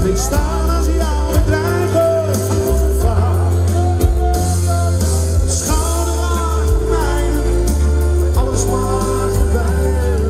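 A man singing live into a handheld microphone over amplified music through a stage PA, the bass note changing every second or two.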